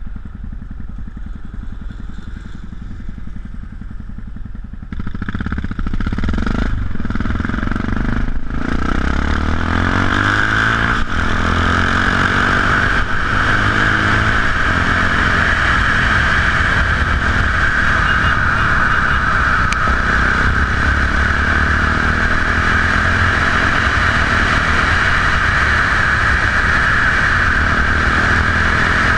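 Yamaha XT660X single-cylinder four-stroke with Leo Vince aftermarket exhausts, idling, then pulling away about five seconds in. It revs up through the gears, with short breaks at the shifts, and settles into a steady cruise under loud wind and road rush.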